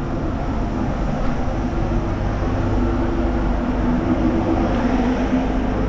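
Steady drone of a jet airliner's engines heard inside the cabin: a deep rumble with a few steady humming tones.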